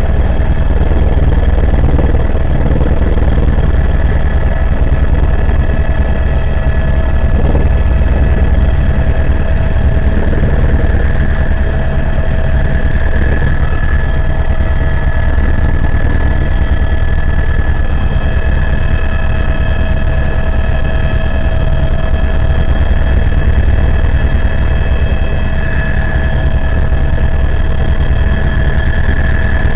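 Helicopter in flight heard from inside the cabin: a steady, loud, low drone of the rotor and engine with a constant high-pitched turbine whine over it.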